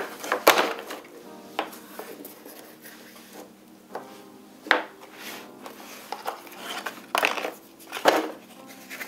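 Wax crayons knocking and clicking against a hard tabletop as they are handled and pushed into rows, with several sharp, irregularly spaced knocks and quieter handling between them. Near the end, hands rummage in a cardboard crayon box.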